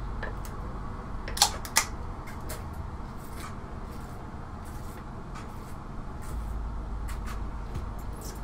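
Two sharp knocks less than half a second apart, about a second and a half in, over a low steady room hum with faint scattered handling ticks.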